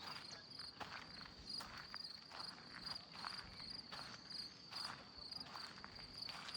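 Crickets chirping in a steady, high, pulsing trill, with a person's footsteps on a path at an even walking pace, a little more than one step a second.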